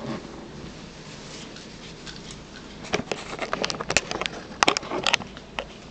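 Handling clatter at a dining table: a quiet first half, then from about halfway a run of sharp clicks and knocks, a few of them loud, as things on the table and the camera are handled.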